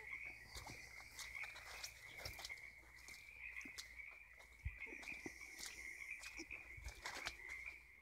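A faint, continuous chorus of many frogs calling from all directions, a dense high trilling that never lets up. Scattered footsteps and snapping twigs through low brush sound over it.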